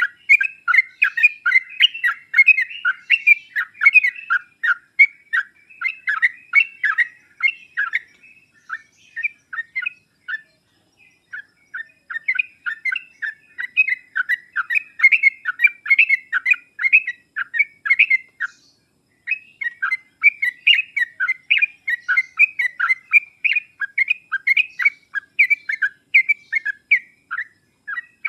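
Yellow-vented bulbul (trucuk) song: rapid, bubbly chattering phrases of many short notes a second. The notes thin out about a third of the way in and pause briefly past halfway.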